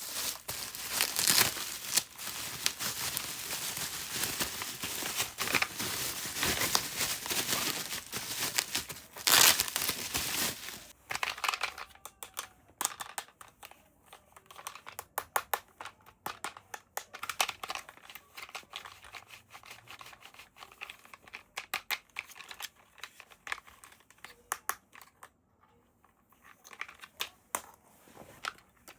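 Packaging crinkling and tearing as a toy is unboxed: dense and continuous for roughly the first ten seconds, then sparser, separate crinkles and clicks.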